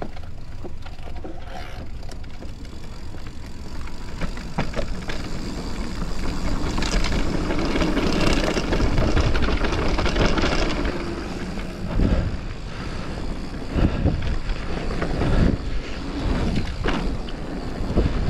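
Focus SAM2 enduro mountain bike descending a dirt trail: a continuous rush of tyre and wind noise that swells for a few seconds midway, then sharp knocks from the bike hitting bumps several times near the end.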